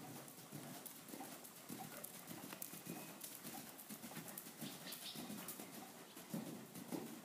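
Hoofbeats of a barefoot Swedish Warmblood gelding moving under saddle on sand arena footing: a run of soft, irregular thuds.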